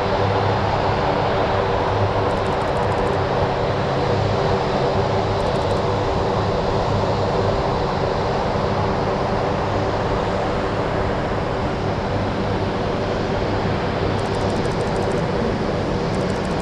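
Jet engines of a Boeing 747-8F freighter (GE GEnx-2B turbofans) running steadily, a loud even rush with a low hum underneath.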